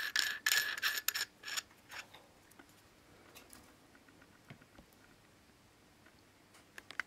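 Aluminium screw thread of a Saberforge Gladius lightsaber hilt scraping and squeaking as the section is screwed together, for about the first second and a half. A few faint knocks follow near the end.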